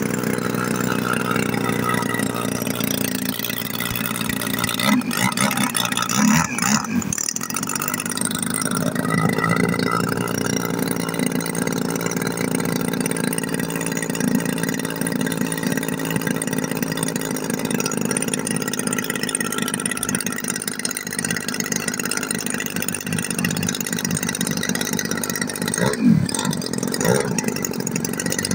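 Engine of a large radio-controlled aerobatic model airplane idling steadily while the plane is held on the ground, with a couple of brief changes in pitch, once about a fifth of the way in and again near the end.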